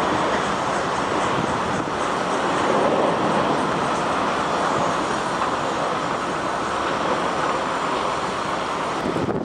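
Jet engines of an Airbus A321 on final approach to land, a steady rushing noise.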